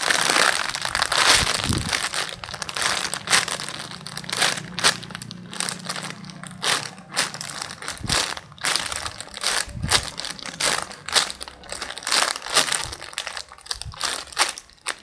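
A soft foam squishy toy being squeezed and handled, giving off an irregular run of crinkling, crackling noises.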